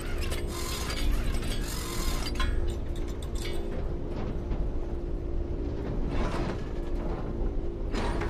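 Film sound mix: a steady low drone with music over it, and metallic clicking and rattling as bolts spin out of a cargo plane's floor panel and drop onto the metal floor.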